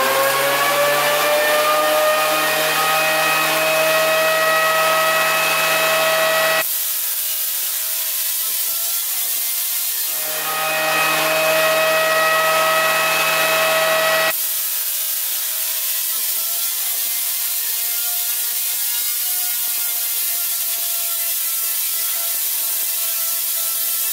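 Giant homemade Tesla coil with a rotary spark gap. The spark gap runs as a steady high whine throughout. The coil fires twice as a loud harsh buzz of sparks: about six and a half seconds from the start, then about four seconds starting around ten seconds in.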